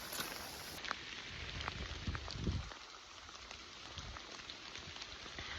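Steady rain falling, with scattered sharp taps of individual drops.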